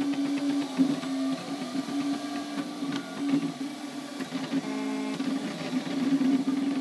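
MakerBot Replicator 3D printer's stepper motors whining as the Stepstruder extruder travels while printing, a steady pitched tone that jumps to a new pitch every fraction of a second as each move changes speed and direction.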